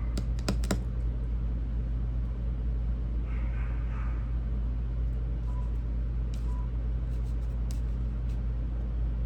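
A steady low hum or rumble, with a few sharp clicks in the first second and a couple of fainter ones later.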